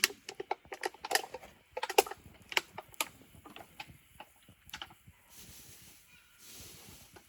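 Wood fire crackling: irregular sharp pops and snaps, several a second, for about five seconds, then easing into a soft hiss.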